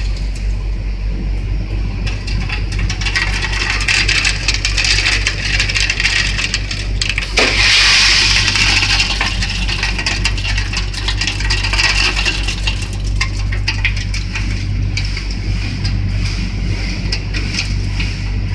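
Motor-driven stirrer of a fried bean and peanut batch frying machine running, with a steady low motor hum and a continuous rattle of fried beans being turned against the perforated steel basket. It swells into a louder rushing sound about seven to eight seconds in.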